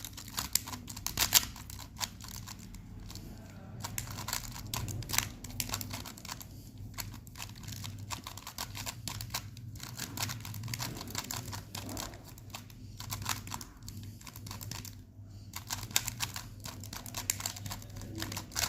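3x3 Rubik's cube being turned quickly by hand during a speed solve: rapid, irregular plastic clicking and clacking of the layers, over a faint low hum.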